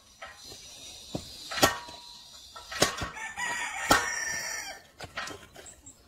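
Firewood being split with a hand-operated lever-arm splitter: three sharp cracks of the blade striking the wood, about a second apart, with a rooster crowing faintly in the background.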